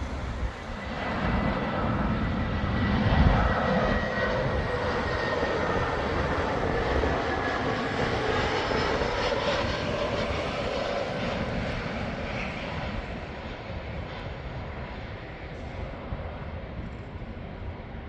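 Airbus A320neo jet airliner passing on its landing approach: the engine noise swells over the first two seconds, is loudest about three seconds in, then slowly fades, with a whine that gradually drops in pitch as it goes by.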